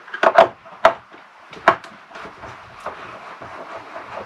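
Screwdriver and wire knocking and clicking against a solar charge controller's screw terminal block as a cable is fitted: a few sharp taps in the first two seconds, then fainter ticks and scraping.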